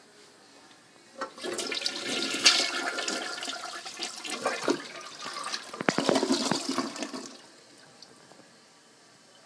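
Toilet flushing: a rush of water in the bowl that starts about a second in and dies away after about six seconds.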